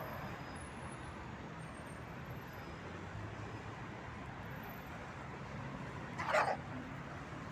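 Steady hum of road traffic, and about six seconds in one short, loud bark from a young guard-trained dog challenging a man who comes at the bag it is guarding.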